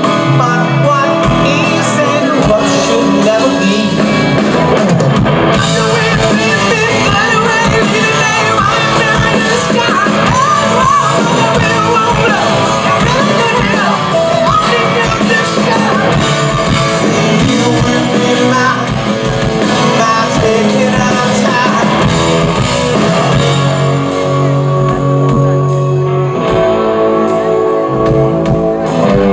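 Live rock band playing: a man singing into a microphone over electric guitars, bass and drums through a PA. Near the end the cymbals drop away and held guitar and bass notes carry on.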